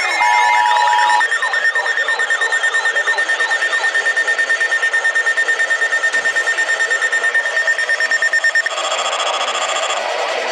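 Several NOAA weather radios sounding their alert alarms at once for an incoming weather alert: overlapping warbling and beeping tones over a rapid, even pulsing beep. About a second in, a two-tone attention signal stops, and near the end the mix of tones changes.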